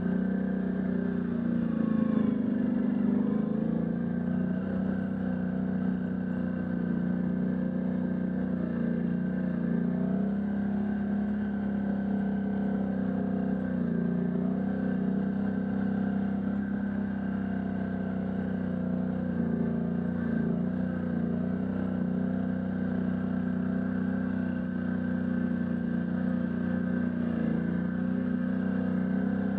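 Can-Am Outlander ATV engine running steadily under way, its pitch rising briefly about two seconds in and dipping slightly about halfway through.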